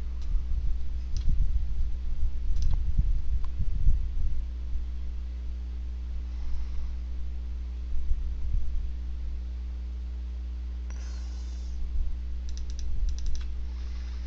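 Scattered clicks from a computer mouse as a font list is scrolled and selected, with a quick run of clicks near the end. A steady electrical hum runs underneath, and there are a few low bumps in the first few seconds.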